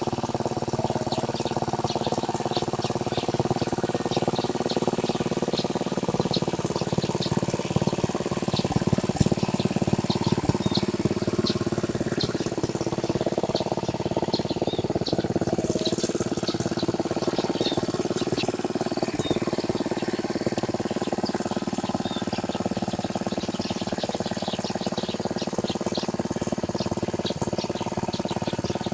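Small tractor engine running steadily as it plows a rice paddy, with birds chirping in short, quick repeated notes over it.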